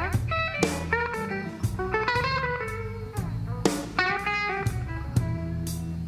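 Rock music: electric guitar playing blues-style notes that slide in pitch, over bass and drums.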